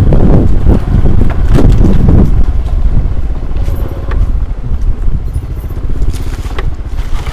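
Motorcycle engine running while being ridden, buried under heavy wind buffeting on the microphone. The rumble is heaviest for the first couple of seconds, then eases a little.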